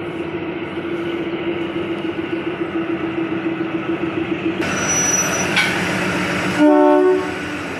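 Narrow-gauge ZDM diesel locomotive running with a steady hum as it couples onto the toy-train coaches, then giving one short horn blast about a second before the end.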